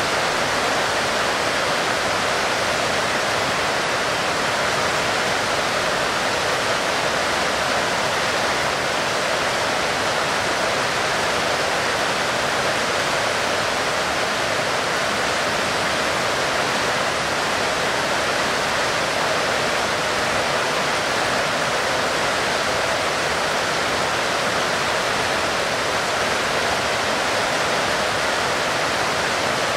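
Heavy rain falling as a steady, unbroken hiss that does not rise or fall.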